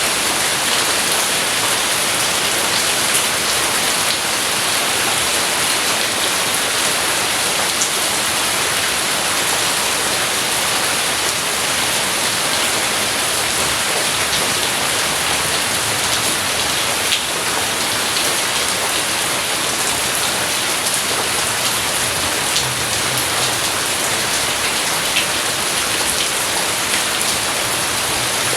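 Steady heavy rain falling, with scattered drop ticks and a faint low rumble swelling late on.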